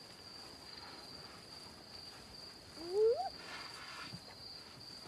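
A hyena gives one short rising whoop about three seconds in, over the steady high trill of crickets.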